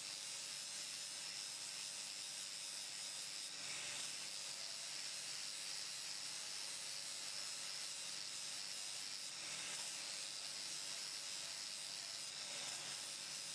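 Angle grinder running steadily under load, its abrasive disc grinding the edge of a steel spanner: an even, fairly quiet hiss with a faint high whine.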